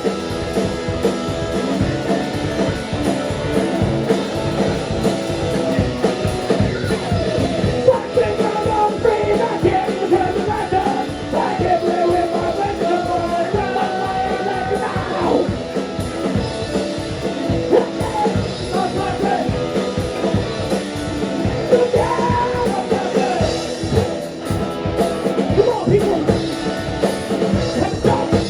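Live rock band playing: distorted guitars, bass and drum kit with sung vocals, recorded from the room.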